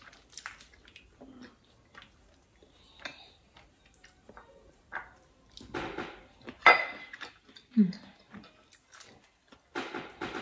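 Boiled crawfish being peeled and eaten up close: shells cracking and snapping in many short clicks, with sucking and slurping, loudest about two-thirds of the way through.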